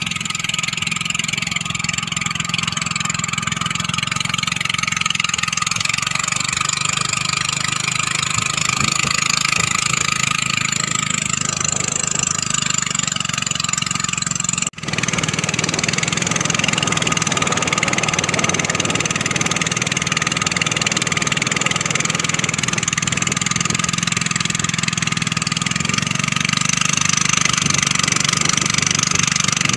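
Small inboard boat engine running steadily at an even speed, driving the wooden boat along. The sound drops out briefly about halfway.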